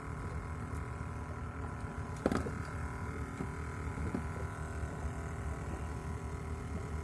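A steady low mechanical hum, like an engine running at an even speed, with a brief knock about two seconds in.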